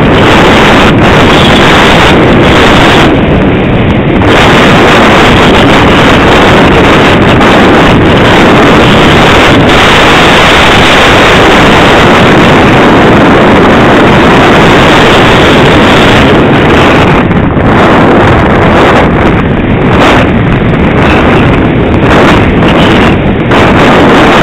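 Loud, steady rush of wind over the onboard camera's microphone on a Multiplex EasyStar II model plane in flight, with a few brief dips in its hiss.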